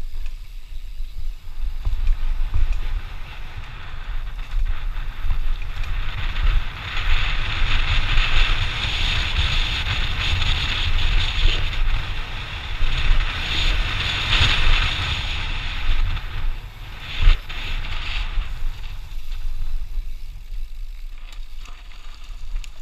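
Mountain bike descending a dirt trail at speed, heard on a bike-mounted camera: wind buffets the microphone with a low rumble, under the tyres and drivetrain rattling and hissing. The high rattle grows louder through the middle stretch as the bike crosses a wooden boardwalk, and there is one sharp knock about seventeen seconds in.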